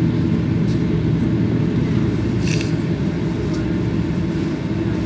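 Steady low rumble of a jet airliner's cabin noise, the Boeing 777-300ER's engines and airflow heard from inside, with a brief hiss about halfway through.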